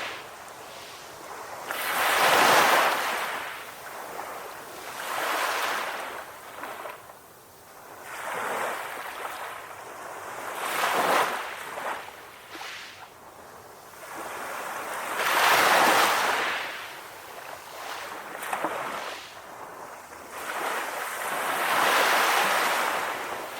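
Sea waves breaking and washing in, in surges that swell up and fall away every few seconds; the biggest come about two seconds in and around the middle.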